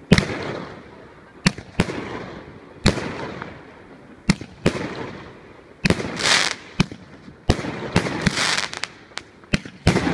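A 724-shot mixed-calibre fireworks cake firing: single shots thumping up one after another at uneven intervals, a dozen or so in all, each followed by the bang of the shell bursting and a trail of crackle and hiss, with longer crackling bursts around the middle.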